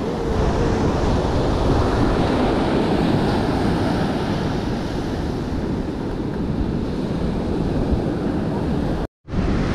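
Surf breaking on a sandy beach, a steady rush of waves with wind buffeting the microphone. The sound drops out to silence for a split second near the end.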